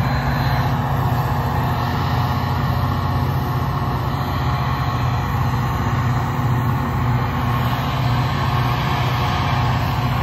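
Metra diesel passenger locomotive running close by, a steady low engine drone.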